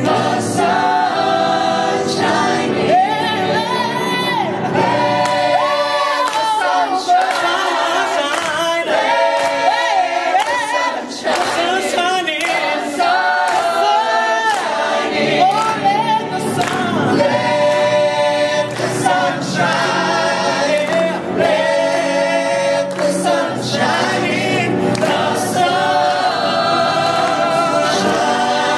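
A mixed ensemble of young male and female voices singing a song together in harmony, some into handheld microphones.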